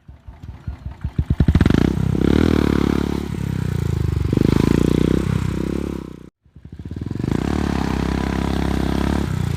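Royal Enfield Bullet 350 single-cylinder engine thumping through a peashooter exhaust. Its separate firing beats quicken as it is revved up, then the revs rise and fall a few times. After a brief break about six seconds in, it runs steadily again.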